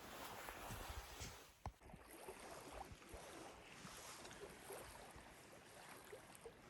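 Near silence: a faint steady outdoor background hiss with a few small soft clicks.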